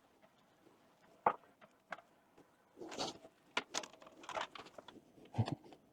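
Scattered handling noises: a sharp click about a second in, a few short rustles and light knocks through the middle, and a duller thump near the end.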